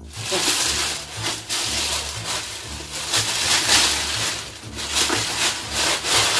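Tissue paper rustling and crinkling in waves as it is handled and pulled away from a cardboard box, with steady background music underneath.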